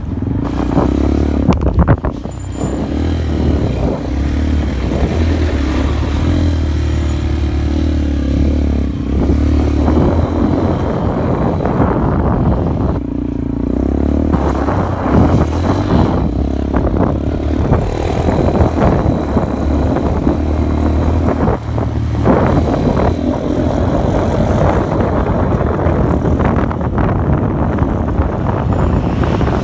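Honda XR125's single-cylinder four-stroke engine running steadily as the motorcycle is ridden over a rough dirt track, with frequent knocks and rattles.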